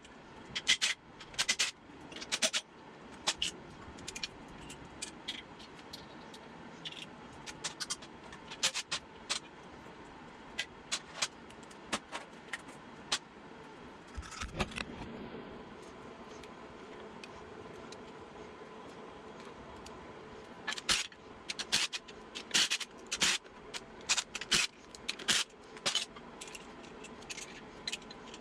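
Metal hand tools and loose engine hardware clinking and scraping in scattered sharp clinks, busiest near the start and again toward the end. There is a quieter stretch about halfway through, with one dull thump.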